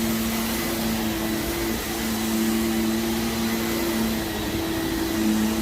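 Vacuum cleaner running steadily over heavily soiled carpet, a hum of two held tones over the hiss of suction, as it pulls dry dirt out of the pile.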